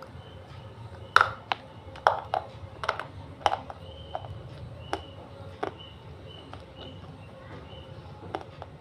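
A piece of white edible baked clay bitten and chewed near the microphone: a quick run of sharp crunches and snaps about a second in, then a few single crunches further apart. The eater finds the clay softer and less crunchy than usual, perhaps from damp weather.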